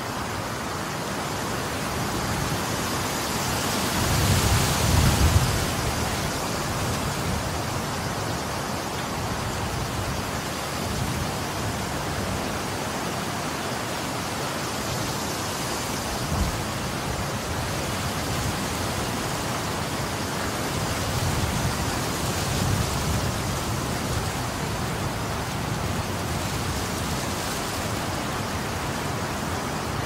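Strong wind blowing: a steady rushing hiss, with stronger gusts about four to six seconds in and again around twenty-one to twenty-three seconds. There is one short knock about sixteen seconds in.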